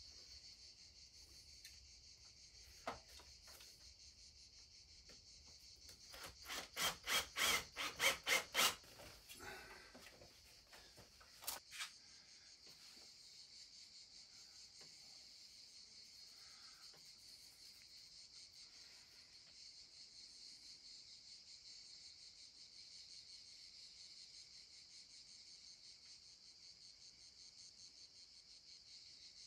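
Insects chirring steadily and high-pitched throughout. About six seconds in comes a quick run of about ten loud strokes, roughly four a second, and a few seconds later two sharp clicks.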